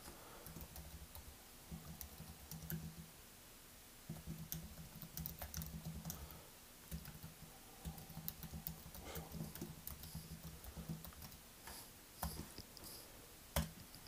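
Faint typing on a computer keyboard: a run of irregular key taps, ending with a louder single key press near the end, the Enter that sends the typed message.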